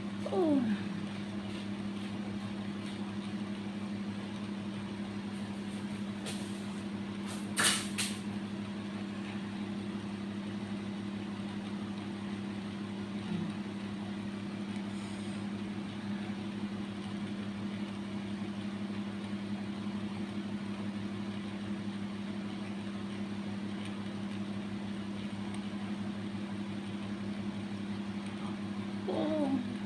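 A steady low hum. A short sound falling in pitch comes just after the start and again near the end, and a sharp click comes about eight seconds in.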